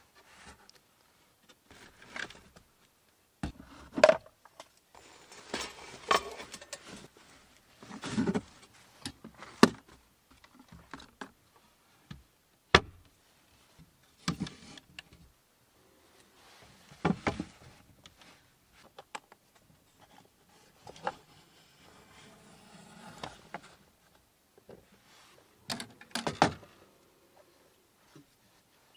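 Camping gear being handled inside a small van: irregular knocks, clinks and rustling as things are moved in and out of a wooden storage box and set on a wooden board, with a few sharp clicks standing out.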